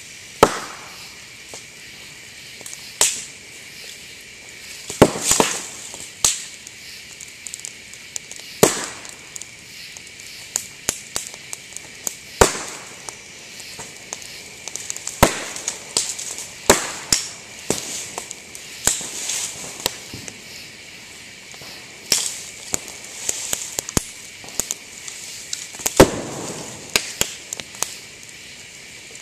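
Bamboo burning in an open fire, its sealed stem sections bursting with sharp pops and cracks at irregular intervals, a few much louder than the rest, over a steady hiss of flames.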